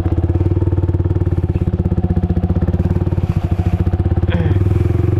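Motorcycle engine running steadily at low revs with an even, rapid beat.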